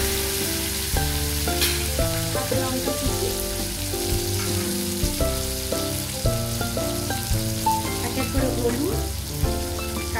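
Chopped tomatoes sizzling in hot oil in a kadai, loudest at first and easing off after a couple of seconds, with a short clack under two seconds in. Background music plays throughout.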